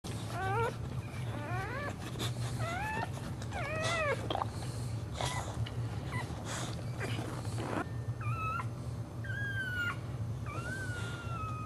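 Boxer dog in labour whining: several short rising whines in the first few seconds, a few short noisy sounds, then longer drawn-out whines near the end as she strains to push out a puppy. A steady low hum runs underneath.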